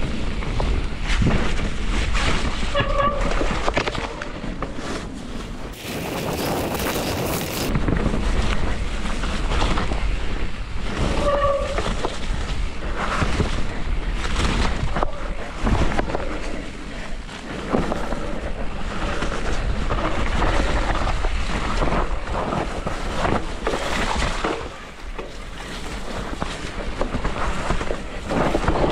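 Mountain bike being ridden down a wet, muddy trail: wind buffets the microphone over a steady rumble of tyres and the clatter of the bike over rough ground. Two short squeaks sound along the way.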